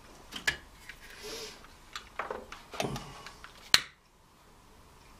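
A series of sharp clicks and small knocks from lighting the gas burner under a Stuart 501 model steam boiler, with a short hiss about a second in; the sharpest and loudest click comes near the end.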